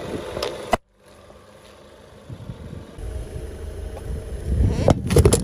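A car's engine running as its tyre creeps forward, with a sharp pop under the tyre just before the sound cuts out under a second in. Near the end the tyre rolls onto a stainless steel mug and crushes it with a loud burst of metallic crunching and crackling.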